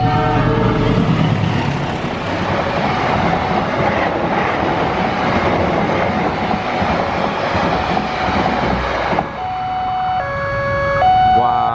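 KA Argo Wilis express train passing a level crossing at speed: a loud rush of wheel and wind noise for about nine seconds that cuts off suddenly as the last carriage clears. The crossing's new electronic two-tone siren alternates under it and stands out clearly again near the end.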